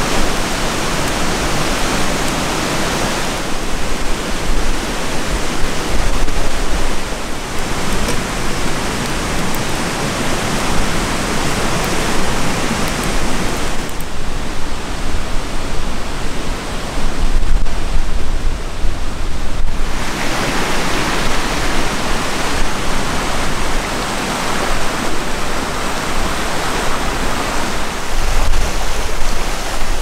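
Steady rushing of wind outdoors, with a low rumble of wind on the microphone, swelling in gusts and changing abruptly a few times.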